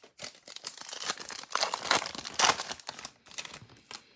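Foil baseball card pack wrapper being torn open and crinkled by hand, a dense crackling rustle that is loudest in the middle and dies away near the end.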